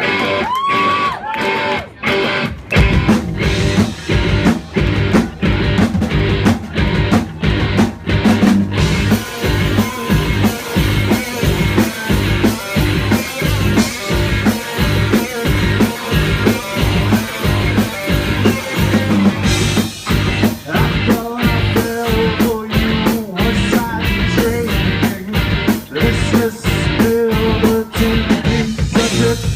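Live rock band playing: a gliding high note opens, then drums, bass and guitar come in together after about two and a half seconds with a steady driving beat.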